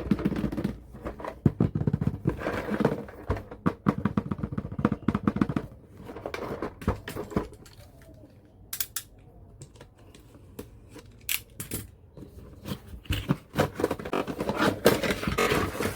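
Close-up unboxing handling of a miniature toy kitchen set: packaging rustling and crinkling, with quick clicks and scrapes of small pieces. It is busy for the first six seconds, goes quieter with scattered ticks in the middle, and picks up again about three seconds before the end.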